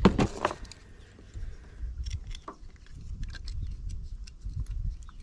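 A loud knock at the start, then scattered light knocks and taps over a low rumble: a freshly caught fish being handled and flopping against the boat.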